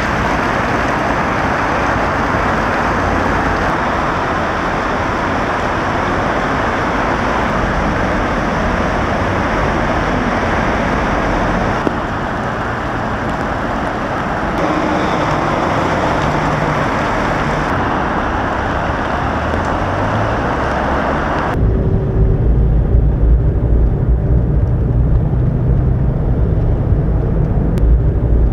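Heavy rain and running water with car tyres swishing through flooded streets: a dense, steady hiss. About two-thirds of the way through it cuts abruptly to a low rumble of traffic driving in the downpour.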